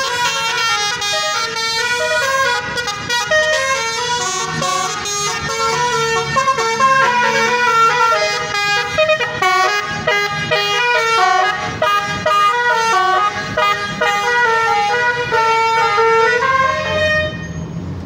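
Tour bus's 'telolet' multi-tone musical horn playing a long melody of quickly changing notes, stopping about a second before the end, with a low engine hum underneath.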